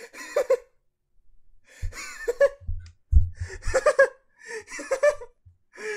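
A person laughing in high-pitched bursts, about five of them, with short silent gaps between.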